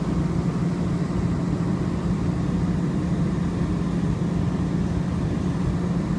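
Interior noise of a Muni Metro J Church light-rail car running along the street: a steady low hum over an uneven low rumble.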